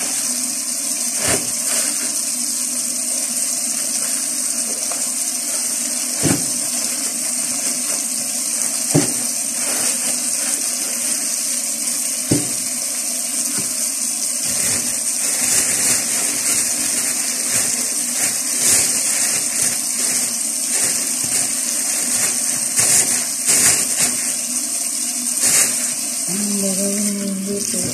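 Kitchen tap running steadily into a sink, with plastic bags rustling and crinkling as shrimp are handled and a few sharp knocks.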